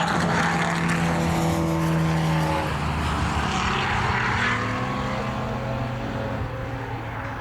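Historic saloon racing cars running hard at full throttle, with several engine notes held steady together. The sound fades gradually after about two and a half seconds as the cars draw away.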